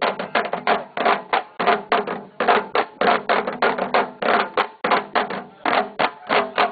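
A group of tall Senegalese drums, struck with sticks and bare hands, playing a fast, dense rhythm of sharp strokes, several a second without a break.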